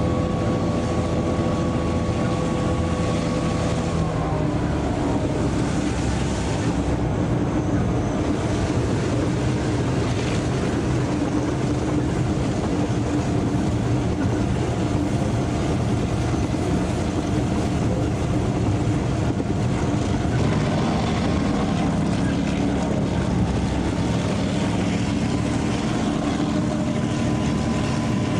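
EMD 567 two-stroke diesel engines of DA class locomotives running steadily under way, heard from the cab with wind and rail noise. The engine note drops about four seconds in, then holds steady.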